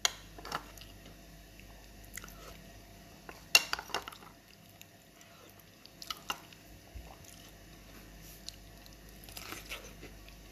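A spoon clinking and scraping in a ceramic soup bowl as soup and corn are scooped out, with a few sharp clinks, the loudest about three and a half seconds in. Eating sounds of chewing and biting lie between the clinks.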